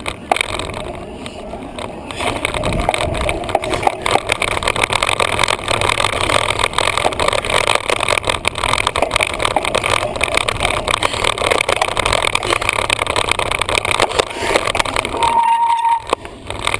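Wind buffeting the microphone and the rattle of a handlebar-mounted camera while riding a bicycle, a loud continuous rush broken by irregular knocks. A brief steady high tone sounds near the end.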